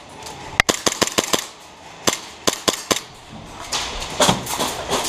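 Airsoft guns firing: sharp snapping shots, a rapid string of about eight shortly after the start, a few single shots in the middle, then another quick string near the end.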